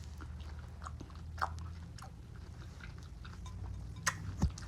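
Close-up chewing of fresh fruit: scattered soft wet clicks and smacks, with two sharper, louder crunches close together near the end.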